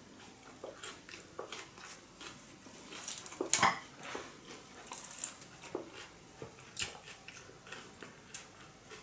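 Scattered small clicks of eating close to the microphone: mouth sounds and light contacts of dishes. A sharper clink, the loudest sound, about three and a half seconds in, is the china plate being handled.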